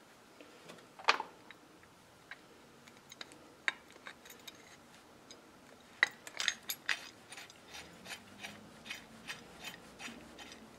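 Light metal clicks and taps as a bolt and spacer are fitted through a steel differential mounting plate and the bolt is threaded in loosely by hand. The clicks are scattered at first, with one sharp click about a second in, then come quicker, about two or three a second, from about six seconds in.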